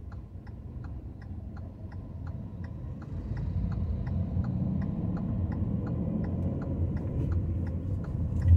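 Car turn-signal indicator ticking steadily, about two and a half ticks a second, heard from inside the cabin over low engine and road rumble. The rumble grows louder about three seconds in.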